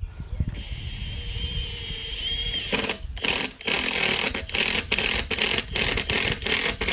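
A power tool running with a steady high motor whine, then from about three seconds in a quick, uneven run of loud bursts.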